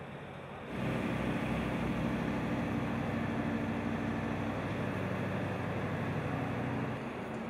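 Heavy machinery engine running steadily with a low drone, coming in less than a second in and easing off near the end.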